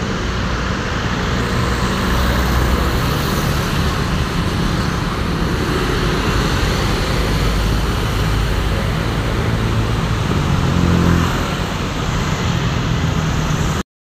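Busy road traffic: motorcycles and a coach bus driving past, with steady engine and tyre noise. It cuts off abruptly near the end.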